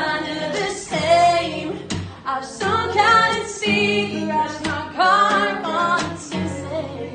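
A woman sings a melody with held notes over her own strummed acoustic guitar in a live acoustic performance.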